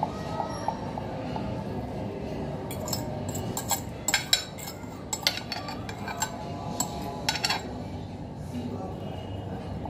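Metal spoon scraping and clinking against a glass dish while spooning sandwich filling onto bread, with a run of sharp clinks from about three to seven and a half seconds in.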